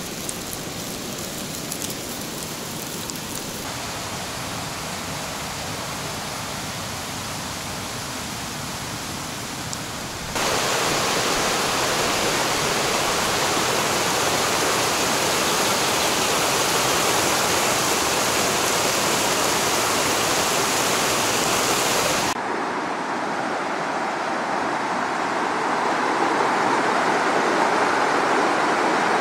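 White water of a mountain stream rushing over rocks, a steady hiss. It is quieter at first, jumps louder about ten seconds in, and about two-thirds of the way through turns fuller with less hiss.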